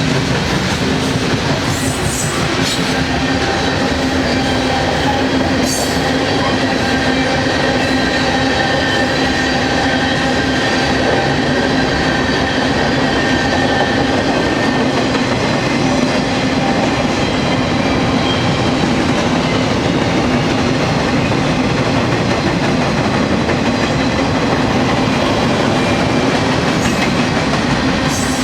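Mixed manifest freight train rolling past: steady loud wheel-on-rail noise with a ringing squeal from the wheels, and a few sharp clicks from the wheels going over the rail.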